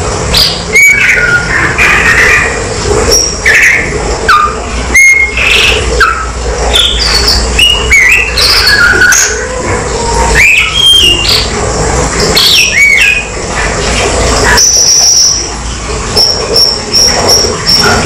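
Blue-and-white flycatcher singing: a run of varied short whistled notes, many sliding up or down in pitch, then a held high whistle about fifteen seconds in, followed by a quick series of short high notes. A steady low background noise runs underneath.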